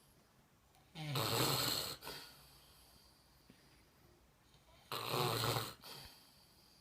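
A man snoring in his sleep: two snores about four seconds apart, each about a second long, with a low rumble and a breathy hiss.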